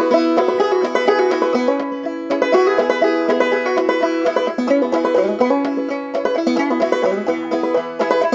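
Clawhammer-style banjo playing an instrumental break between sung verses: a steady stream of brushed and plucked notes over a ringing drone, with a few sliding notes.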